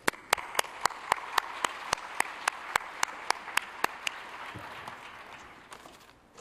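Audience applauding, with one person's sharp hand claps close to the microphone standing out, about four a second for the first four seconds; the applause then dies away.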